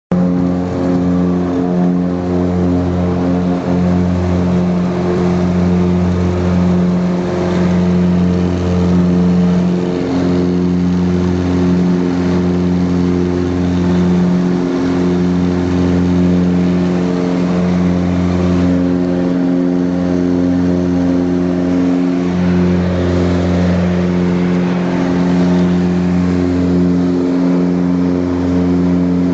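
Piper Seneca II's twin turbocharged Continental six-cylinder engines and propellers at takeoff power, heard inside the cabin through the takeoff roll and climb. A steady drone with a slow throb every two to three seconds, the beat of the two propellers turning at slightly different speeds.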